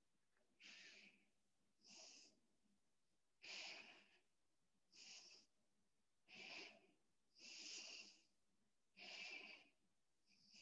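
A woman's faint breathing: about eight short breaths, one roughly every second and a half, while she holds a lunge stretch.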